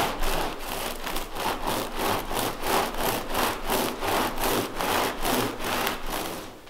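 Bamboo felting mat rolled briskly back and forth by hand over a soap-wet wool cord on a felt cloth. The bamboo slats rasp in an even rhythm, about three strokes a second, and stop shortly before the end. This is the rolling stage of wet-felting a cord.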